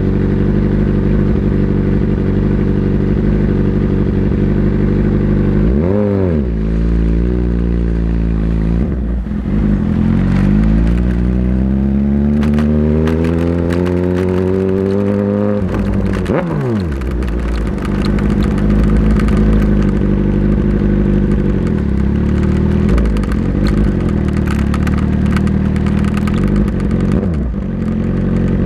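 Motorcycle engine running at a steady pitch, revving up and back down briefly about six seconds in. It then climbs steadily in pitch for about six seconds as it accelerates, drops sharply, and settles back to a steady lower note.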